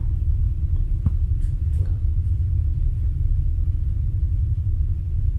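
Low, steady rumble with a few faint clicks about one to two seconds in.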